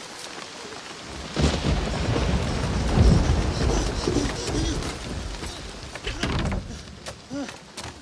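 Heavy rain pouring, with a long roll of thunder that starts about a second and a half in, is loudest around three seconds and fades out, then a shorter rumble of thunder near six seconds.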